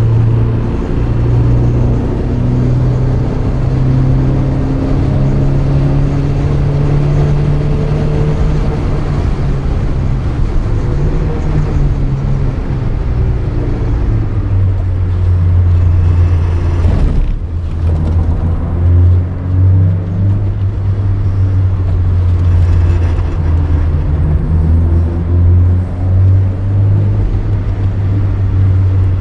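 Porsche 924's 2.0-litre four-cylinder engine under load, heard from inside the cabin. Its note climbs slowly over the first several seconds and then eases back. About two-thirds of the way through it drops out sharply for a moment, and it then runs steadier with several brief dips.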